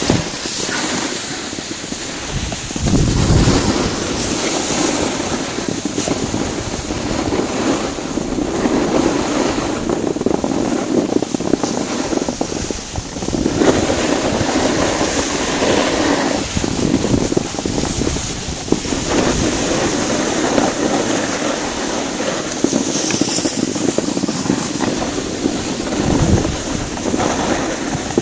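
Wind rushing over a moving microphone, mixed with the hiss of skis sliding over snow, rising and falling in swells.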